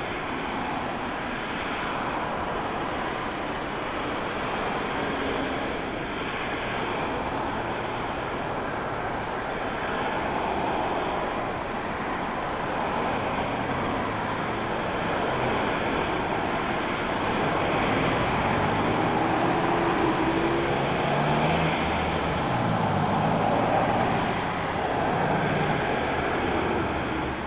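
Airbus A320-family jet airliner engines on the runway: a steady rush that grows louder in the second half, with low tones rising and falling.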